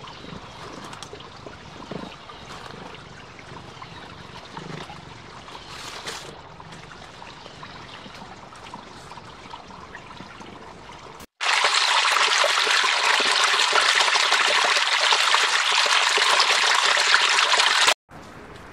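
A small stream trickling, with faint rustles in dry leaves. About 11 seconds in, a much louder, steady rush of water starts abruptly and cuts off just as suddenly about 7 seconds later.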